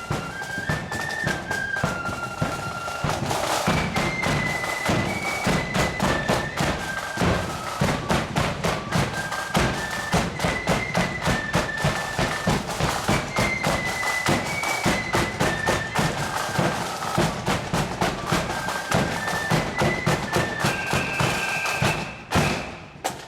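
Marching band playing a tune on high wind instruments over rapid, continuous drumming; the music stops abruptly shortly before the end.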